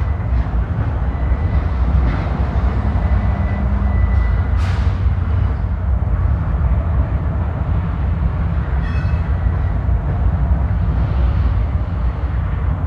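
Double-stack intermodal freight train rolling past: a steady, heavy low rumble of the cars on the rails. A thin high whine sounds over it and stops about four and a half seconds in.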